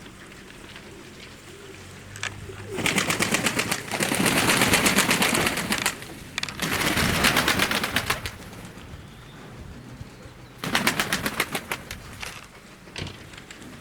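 Pigeon wings flapping and clapping in four loud bursts of rapid beats, each a second or two long.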